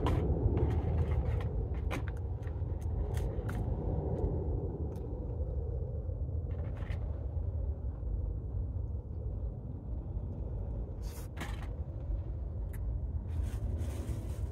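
Eating and food-handling noises: scattered short crunches and clicks over a steady low rumble.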